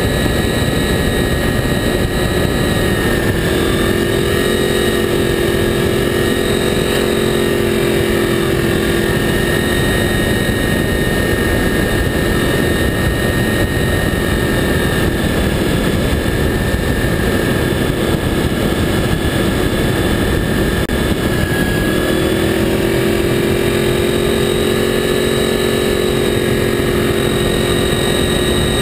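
Honda VFR 800's V4 engine running steadily under way at road speed, mixed with a constant rush of wind and road noise. The engine note climbs a little a few seconds in and again about 22 seconds in.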